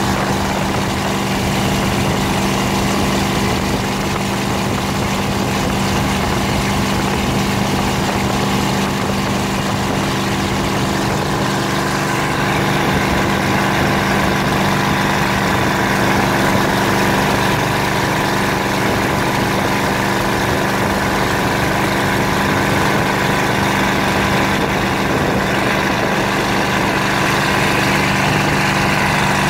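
Motorboat engine running steadily at towing speed, with the rush of water and spray from the wake.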